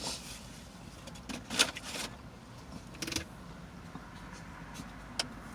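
Quiet steady hum inside a car, with a few brief soft noises about a second and a half and three seconds in and a short sharp click near the end.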